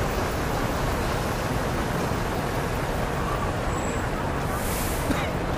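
Steady traffic noise on a rain-wet city street, with a short high hiss near the end.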